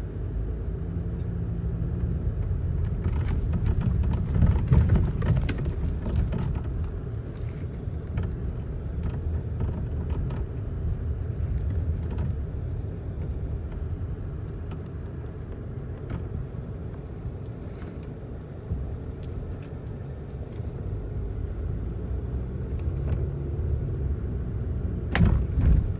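Car cabin while driving: steady engine and road rumble. Near the end, a short sharp clunk as the power door locks engage automatically.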